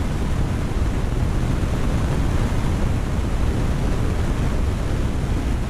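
Steady rushing, rumbling water noise of a running aquarium's filter and air bubbles, heaviest in the low end and unchanging throughout.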